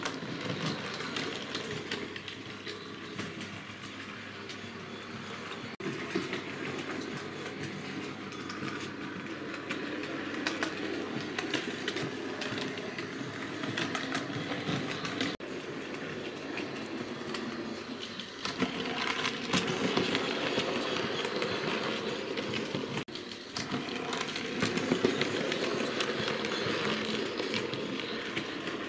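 Hornby OO gauge model steam locomotive running on the layout track: the electric motor whirs and the wheels click steadily over rail joints and points. It grows louder in the last third, with a few sudden breaks in the sound.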